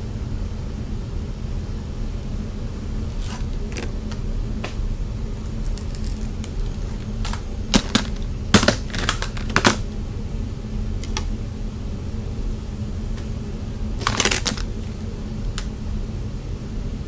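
Scattered light clicks and a brief rustle of a flat iron and hair being handled, over a steady low hum. The clicks cluster around the middle, and a short rustle comes near the end.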